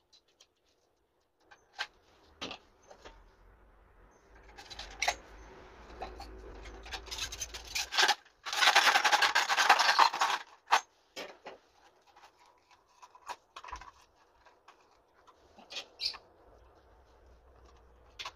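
Hand work on plastic PVC pipe: scattered clicks and knocks, and about halfway through a loud burst of rapid scraping lasting about two seconds.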